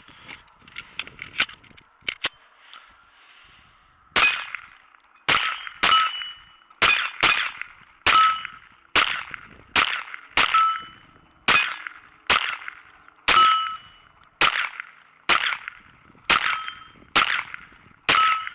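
Glock 44 .22 LR pistol fired at a steady pace, about one shot a second, some seventeen shots beginning about four seconds in, after a few light clicks. It is emptying an 18-round magazine of CCI Mini-Mag ammunition, cycling every round without a stoppage.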